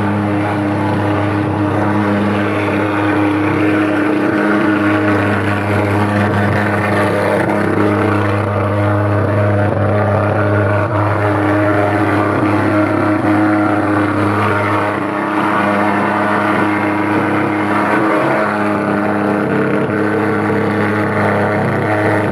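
Portable thermal fogging machine running steadily, its pulse-jet engine making a loud, even drone as it blows out insecticide fog for mosquito control.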